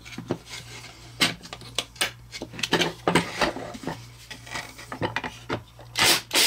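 Small machine screws and nuts being handled and fitted into a 3D-printed plastic CNC part: an irregular run of light clicks and clinks, with a louder brief scraping sound near the end.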